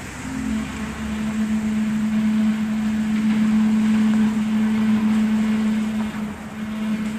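A tractor scraping along the street, giving a long, steady drone at one pitch with a short break about six seconds in: the kind of eerie sound that gets passed off as the mysterious 'earth creak' (the Hum).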